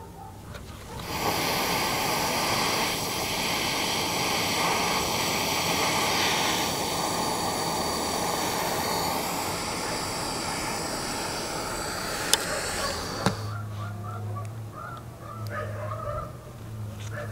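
Handheld gas torch flame hissing steadily while heating small brass lure parts to flow solder onto them; it starts suddenly about a second in and cuts off about thirteen seconds in, with two sharp clicks just before it stops. A few faint taps follow.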